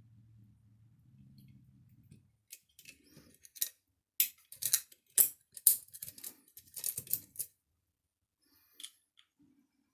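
Small metal screws and hard kit parts clicking and rattling as they are picked through, a cluster of sharp clicks lasting about five seconds, then a single click near the end.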